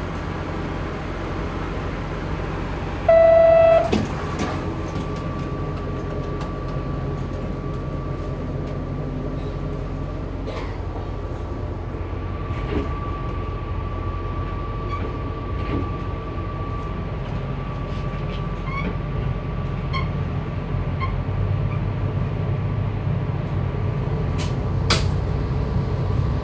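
Diesel railcar running at the platform. About three seconds in, a short door-closing chime sounds and the door knocks shut; the engine rumble then builds as the train pulls away, with scattered clicks and clunks from the carriage.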